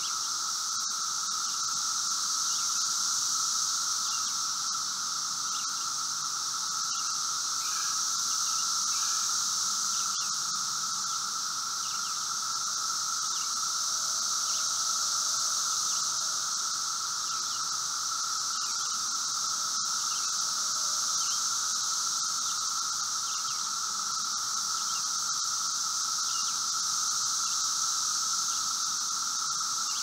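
A chorus of Brood V 17-year periodical cicadas (Magicicada, here M. cassini) singing as a continuous, even drone, swelling and easing gently every few seconds.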